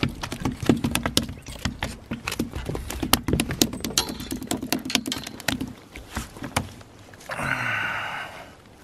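A freshly landed kahawai flapping on the wooden wharf deck: a rapid, uneven run of slaps and knocks against the boards that stops about six and a half seconds in. A brief hiss follows near the end.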